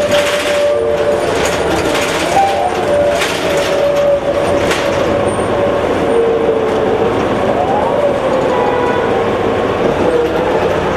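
Inside a 2003 New Flyer D60HF articulated bus on the move: the Allison B500R automatic transmission whines steadily, its pitch wavering and gliding up and down, over the drone of the Detroit Diesel Series 50 engine. A few sharp clatters come from the bus body in the first half.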